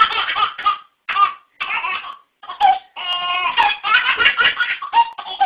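A baby laughing in short high-pitched bursts, with a longer run of quick laughs about three seconds in.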